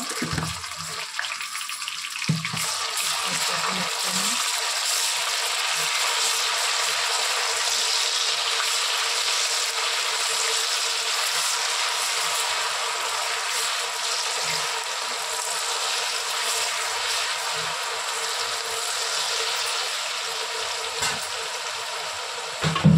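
Ginger-garlic paste sizzling in hot oil with fried onions: a steady, even sizzling hiss, with one short knock about two seconds in.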